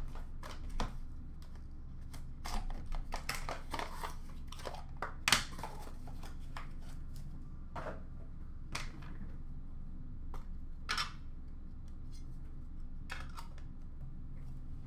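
Hockey trading cards and their packaging handled on a counter: scattered light clicks, taps and short papery rustles, a few louder ones about two and a half, five and eleven seconds in, over a faint steady low hum.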